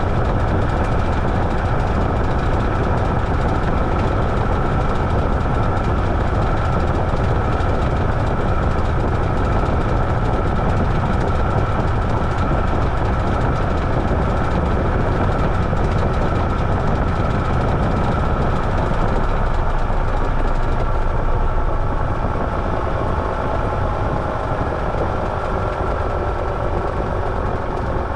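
Washing machine running: a steady loud mechanical hum with a high motor whine. About 22 seconds in, it gets a little quieter and its tones slide down in pitch as the drum slows.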